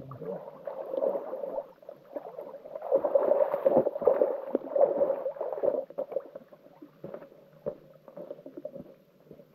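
Water splashing and sloshing around a person's legs as they wade out of shallow lake water onto the shore. It is loudest from about three to six seconds in, then fades to scattered light footsteps.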